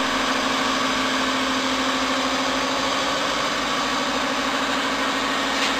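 Hydraulic power unit of a semi-automatic rubber press, its electric motor and pump running with a steady hum.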